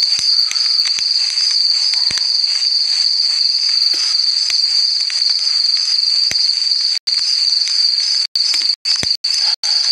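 Crickets trilling steadily at a high pitch. The sound cuts out completely for a moment several times in the last three seconds.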